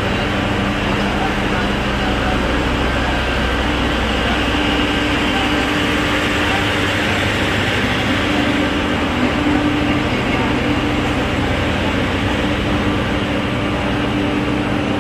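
Steady machine drone of a train's generator car, its diesel generator set running, with a continuous low hum whose deepest part eases about six seconds in. Crowd chatter mixes in.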